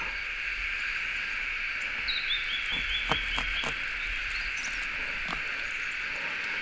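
A steady high-pitched chorus of calling animals, with a quick run of about eight short chirps a couple of seconds in. A few soft knocks of the fillet knife against the wooden chopping board come around three seconds in and once more later.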